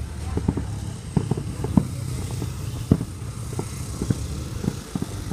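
Fireworks going off at a distance: irregular dull booms, about two a second and loudest just after the middle, over a steady low rumble of crowd and traffic.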